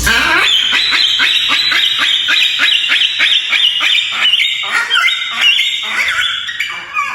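Captive birds calling loudly in a rapid run of harsh, honking calls, about three a second, that thins out and stops near the end.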